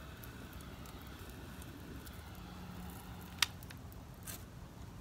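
Metal tongs poking and scraping through ash and burnt hair on a barrel charcoal grill's steel grate, with scattered light ticks and one sharp clink about three and a half seconds in.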